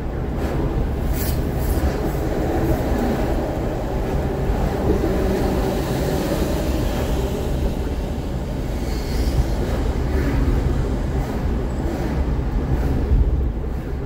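Steady low rumble of tyre and engine noise from a car driving in city traffic.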